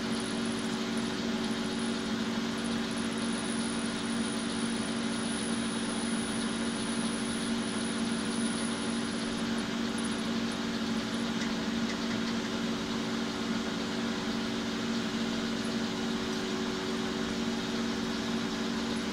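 Metal lathe running steadily while a twist drill in the tailstock chuck bores into the spinning bar stock: a steady machine hum with a few constant tones.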